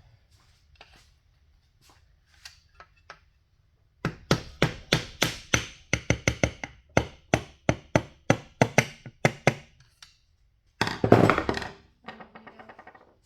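Hammer striking a motorcycle's stuck clutch cover in a steady run of sharp taps, about three or four a second for several seconds, to break it free of its silicone seal. Near the end comes a louder clatter lasting about a second.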